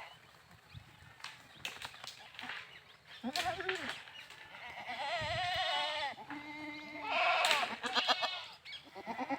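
Goats bleating: several wavering, quavering calls, the first about three seconds in and more following every couple of seconds.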